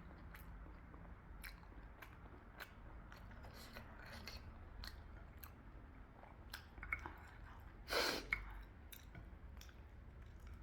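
A person chewing food close to the microphone, faint wet mouth clicks and smacks every half second or so, with a short louder noise about eight seconds in.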